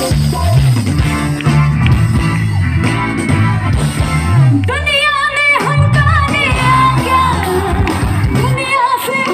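Live band music played loud through a concert PA, with a moving bass line and guitar, and a woman singing a melody from about halfway through.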